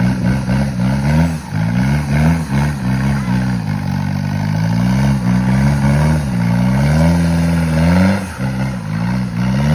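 Off-road 4WD vehicle's engine revving hard, its pitch rising and falling again and again as the throttle is worked, with a longer held rev a little before the end and a brief drop just after it.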